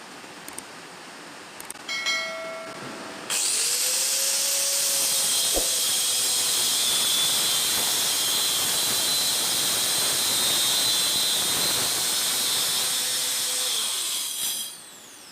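Angle grinder in a homemade sliding cutting jig starting up with a brief whine. It then cuts through stock with a loud, steady hiss for about eleven seconds and winds down with a falling whine near the end.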